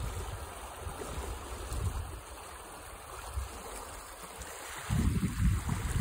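Stream of fast, turbulent, foaming water flowing down a channel, a steady rushing hiss. About five seconds in, wind starts buffeting the microphone in low rumbling gusts.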